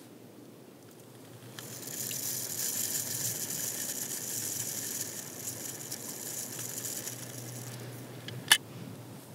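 Small plastic ice-fishing reel wound by hand: a steady ratcheting whirr for about six seconds, then a single sharp click near the end.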